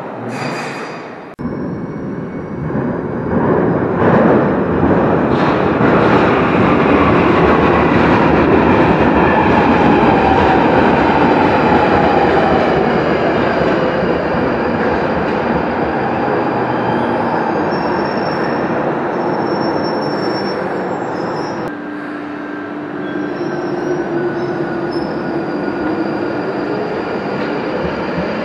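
London Underground 1995 Tube Stock train on the Northern line running in with a falling motor whine and wheel squeal, then pulling out with a rising whine as it accelerates away.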